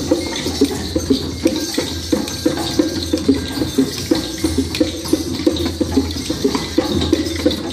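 A group playing hand percussion all at once: many scattered, irregular light taps on drums and sticks over a steady, rain-like hiss of shakers.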